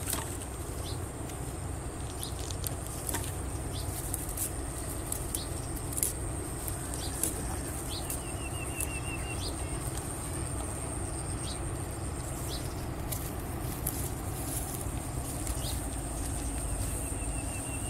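Rural outdoor ambience: short bird chirps, with a brief rapid trill heard twice, over a steady high-pitched whine and a low rumble. Scattered clicks and rustling from handling and steps in the vegetation run through it.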